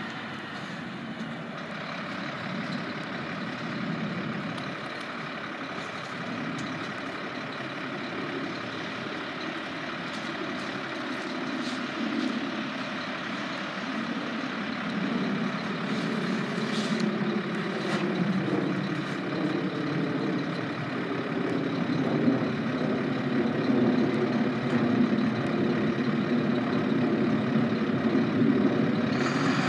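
Mack LR garbage truck's diesel engine idling steadily, with a few light knocks as cardboard boxes are dropped into its Curotto Can. From about halfway the engine revs up and runs louder with a rising pitch, working the hydraulics of the Heil Odyssey front-loader arms.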